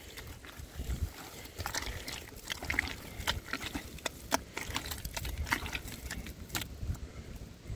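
Wet clay mud being squeezed and kneaded by hand in a tub: irregular squelches and slaps as the mix is worked for daubing a kiln wall.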